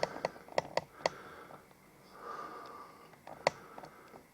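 A few light, sharp clicks, four in quick succession in the first second and a louder one about three and a half seconds in, with a soft breath or sniff between them in a small room.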